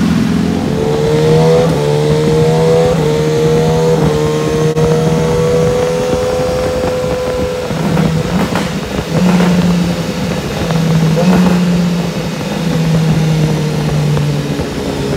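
2018 BMW S1000RR's inline-four engine running under load on a chassis dyno. Its note climbs slowly for about seven seconds, then levels off and falls as the bike slows on the rollers.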